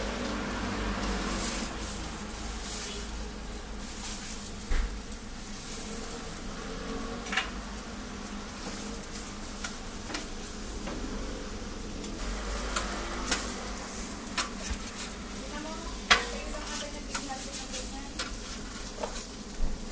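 Egg pancakes sizzling on a flat-top steel griddle, with a metal spatula scraping and tapping against the griddle plate in a series of sharp clicks. The sharpest knock comes late on.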